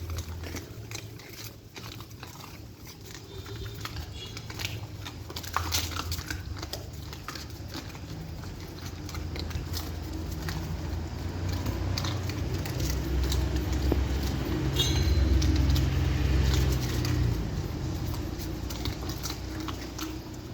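Dogs eating, with scattered short chewing clicks and snaps. A low rumble swells in the second half.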